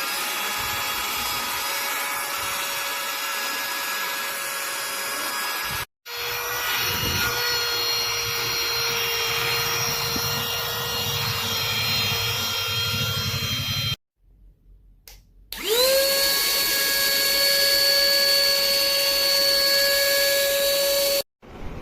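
Portable cordless vacuum cleaner motor running with a steady whine, in three stretches that each cut off abruptly. The first and last start with the motor spinning up, its whine rising before it settles.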